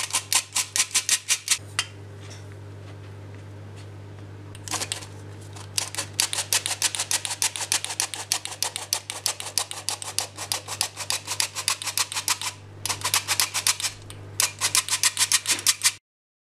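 Hand-operated metal flour sifter clicking quickly as it sifts flour, about six strokes a second, in several runs with a long pause near the start and short breaks near the end.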